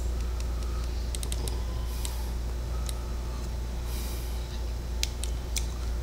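Light clicks of computer keys: a quick run of about four clicks a second in and a few more near the end, over a steady low hum.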